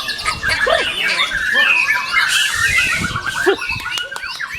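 White-rumped shama singing a fast, varied song of whistled glides, trills and harsh squawky notes.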